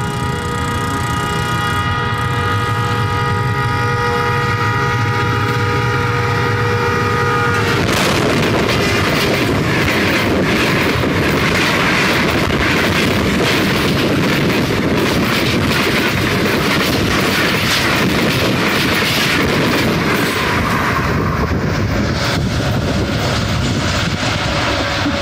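ZCU-30 diesel locomotive's multi-tone air horn held for about eight seconds as the express approaches, cutting off suddenly as it passes. Then the coaches rush past close by, with a steady rumble and rapid clatter of the wheels on the rails.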